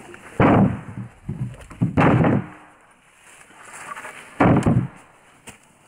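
Cut logs dropped one at a time onto a small trailer already piled with logs: three heavy wooden thuds about two seconds apart, with lighter knocks in between.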